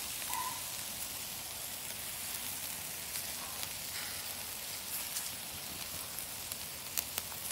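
Pork sizzling on the grate of a charcoal kettle grill: a steady hiss of cooking meat, with scattered small pops and crackles, a few close together near the end.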